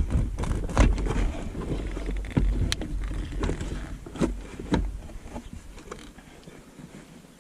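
Scattered clicks and knocks of hands working on parts around the emergency brake handle, over a low rumble that fades away toward the end.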